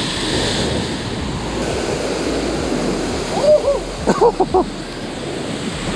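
Ocean surf breaking and washing against a rocky shoreline, a steady rushing wash. About three and a half to four and a half seconds in, a few short sounds slide up and down in pitch over it.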